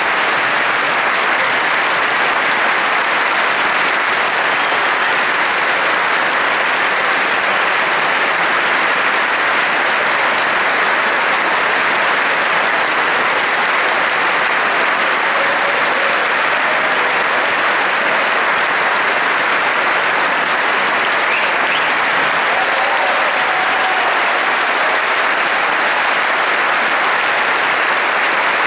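A large concert-hall audience applauding, a dense, steady wash of many hands clapping that neither swells nor fades.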